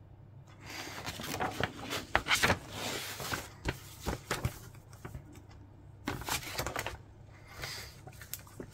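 Large printed paper instruction sheet rustling and crinkling as it is handled and moved, in several bursts: a long one starting about half a second in, then shorter ones past the middle and near the end.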